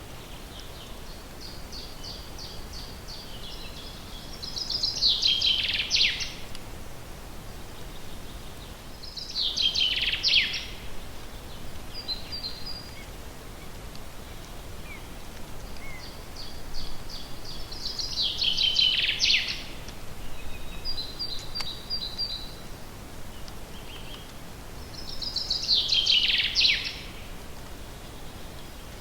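Forest songbird singing the same song four times, each phrase a run of quick high notes that ends in a falling flourish, with shorter high chirps between, over a steady background hiss.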